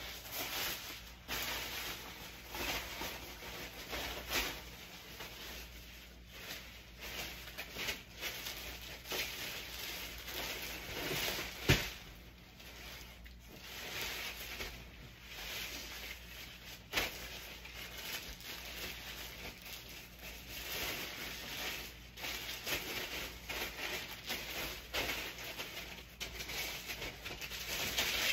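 Clothes and other items rustling and crinkling as they are handled and stuffed into a fabric duffel bag, with scattered knocks and one sharp click about twelve seconds in.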